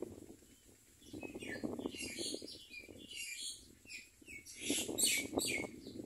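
Birds chirping: a run of harsh, high calls starting about a second and a half in, over a low crackling rustle.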